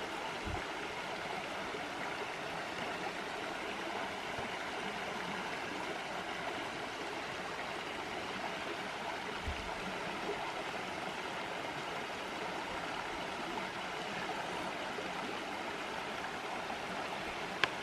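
Small creek cascade: water running and splashing steadily.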